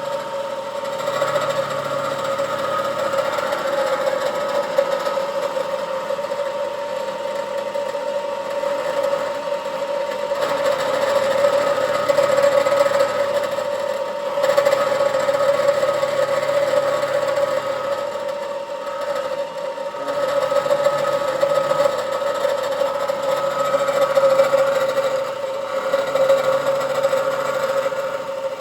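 Milling machine running while cutting a block of aluminium flat: a steady whine, with a lower hum that comes and goes every few seconds as the cutter makes its passes.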